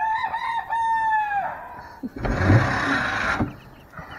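A rooster crows once: a cock-a-doodle-doo of a few short notes and a long final note that falls away at the end. About two seconds in comes a loud rustle for about a second.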